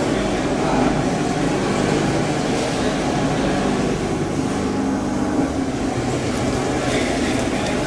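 Food filling and packing machine running: a steady mechanical hum and whir with a low droning tone.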